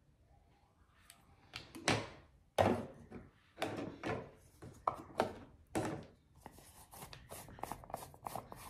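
Makeup products and containers being handled and set down on a hard surface: a string of sharp clicks and knocks, then a quicker run of small rattling clicks near the end.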